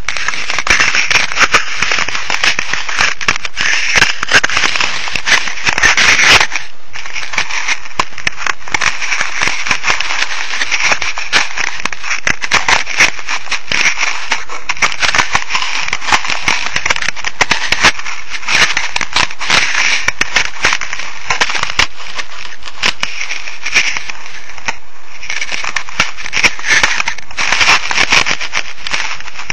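Loud, steady rushing noise full of crackles and sharp clicks, picked up by the small microphone of a cheap RC camera, with a louder patch about six seconds in.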